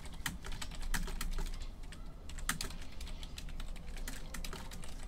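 Typing on a computer keyboard: scattered, irregular key clicks.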